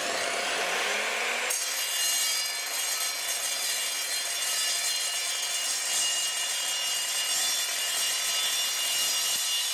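Evolution R255SMS sliding mitre saw cutting through 3 mm steel angle. The motor is still spinning up as the blade comes down. From about a second and a half in, the blade bites into the steel with a steady, high-pitched ringing grind that eases off near the end.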